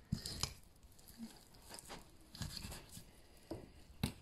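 Faint, scattered sounds of a knife cutting around the bone of a raw leg of lamb and fingers working the meat, with a few short clicks.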